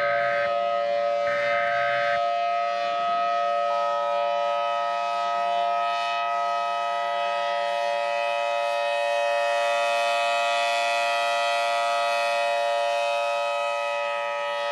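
Air-raid siren sounding as a steady chord of several held tones, with another tone joining about four seconds in. A couple of short, higher buzzing bursts are heard in the first two seconds.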